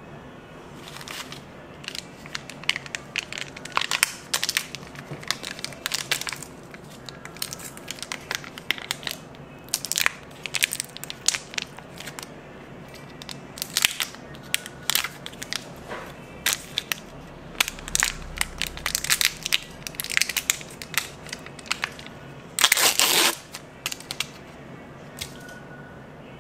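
Close-up crunching and crackling of candy: sharp crackles come in irregular clusters, with a longer, louder crunch near the end.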